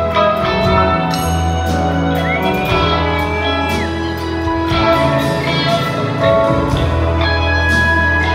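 A live rock band playing: electric guitar, piano, upright bass and drums, with an orchestra behind them. About two seconds in, a lead note slides up, holds and drops back off about two seconds later.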